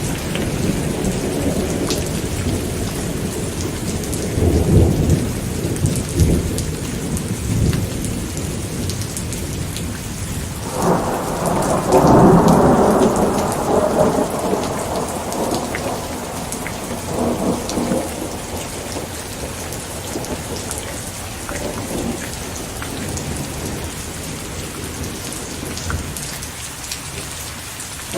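Steady rain with rolling thunder. Low rumbles swell and fade in the first few seconds, and a louder thunder roll breaks about eleven seconds in and dies away over several seconds.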